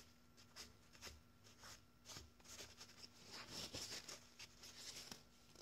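Faint rustling of a paper towel rubbed over a steel rifle barrel and gas block, wiping off excess thread locker in a run of short, irregular strokes that are loudest a little past the middle.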